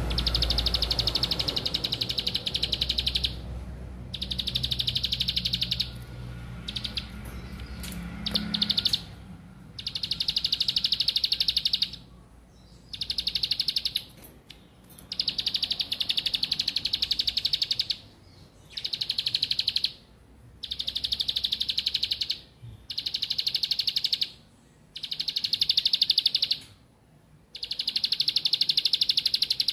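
Plain prinia (ciblek sawah) singing: about ten bouts of a fast, buzzy trill, each two to three seconds long, broken by short pauses.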